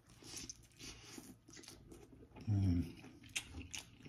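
Close-up chewing of a bite of birria pizza: crunchy, wet mouth sounds with frequent small clicks, broken by a brief hummed vocal sound about two and a half seconds in.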